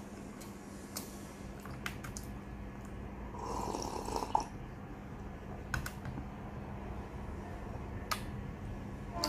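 A person drinking milk from a glass bowl, one slurping sip about three and a half seconds in lasting about a second, with a few sharp clicks of glass and tableware before and after, over a steady low hum.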